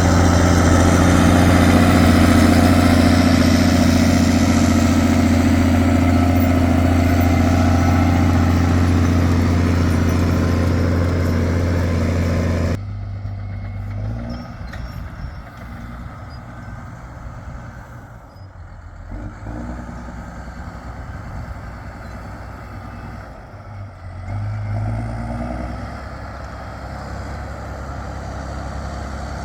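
Straight-piped Claas Axion 820 tractor's six-cylinder diesel running loud and steady at high revs. About thirteen seconds in the sound drops suddenly to a much quieter, lower running, with a couple of brief swells.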